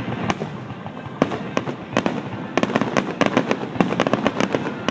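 Fireworks going off in a rapid string of sharp bangs and crackles, thickest in the second half.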